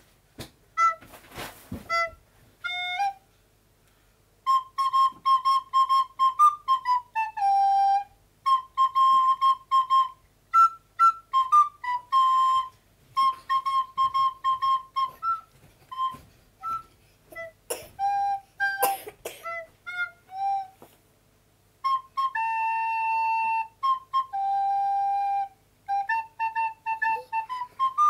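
A recorder playing a simple melody one note at a time, with many short repeated notes on the same pitch and a few longer held ones, broken by a couple of brief pauses.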